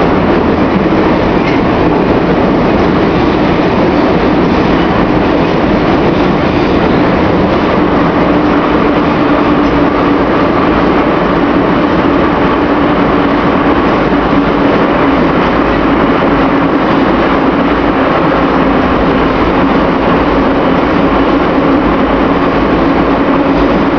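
Interior of an old Moscow metro car running between stations: a loud, steady rumble of wheels on rail and running gear, with a steady hum through it.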